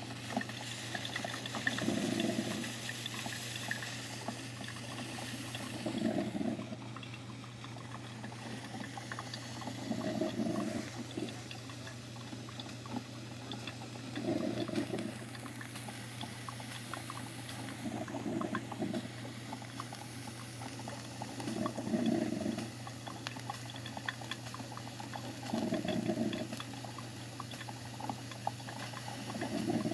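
A broken, leaking coffee machine running with a steady low hum and bubbling, crackling water, with a low gurgling surge about every four seconds.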